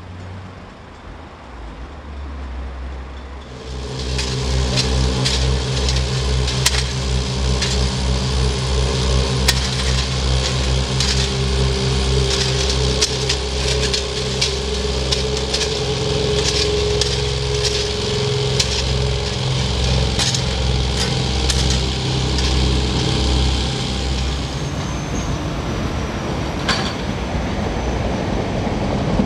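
Train passing close by: a steady engine drone with a rhythmic low throb and sharp clicks of wheels over rail joints, building about three seconds in and dying away about 24 seconds in. A thin high whine follows near the end.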